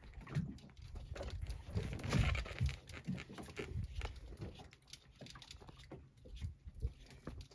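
Irregular rustling and crackling with soft low thumps: handling and wind noise on a hand-held phone's microphone.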